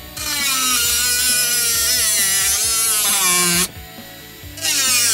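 Small handheld rotary tool with a cutting disc whining as it cuts into model railway track, its pitch wavering and dipping. It runs for about three and a half seconds, stops for about a second, then starts again near the end.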